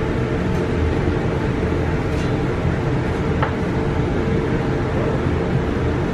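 Steady drone of a commercial kitchen's extraction hood fan running, with a few light clinks of a spoon against a metal tray.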